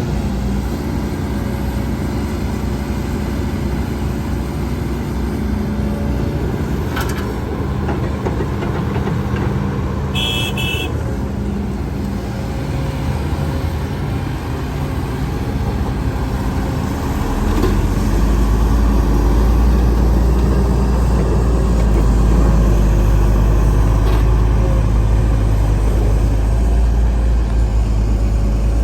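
Heavy diesel earthmoving machinery running steadily, the engines of an excavator and dump trucks. A short high beep sounds about ten seconds in, and the engine sound grows louder and deeper about two-thirds of the way through, as a machine comes under load.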